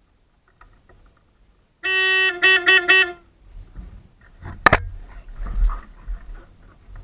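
Vehicle horn honking: one held note, then three quick beeps. A sharp click follows a little later, then low rumbling noise.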